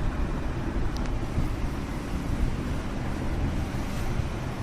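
Steady low rumbling background noise with no clear pitch, with a faint short tick about a second in.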